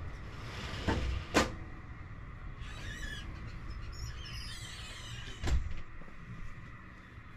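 A few dull knocks, two about a second in and one more after five seconds, with light crinkly rustling in between.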